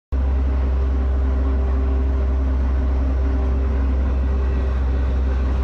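New Holland L150 skid steer's diesel engine running steadily, with a strong low hum and an even level, starting abruptly a moment in.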